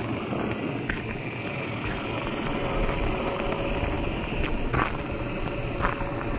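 1/10-scale RC trucks driving over loose gravel: a thin steady electric-motor whine that comes and goes over the crunch of tyres on stones, with a few sharp clicks.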